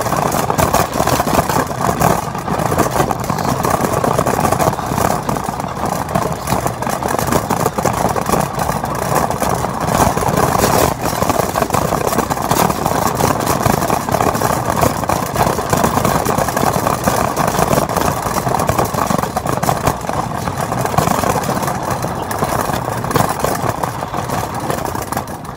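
Shopping cart rolling over parking-lot asphalt: the wheels and the wire basket rattle loudly and steadily, picked up by a camera riding in the cart. The rattle stops at the very end.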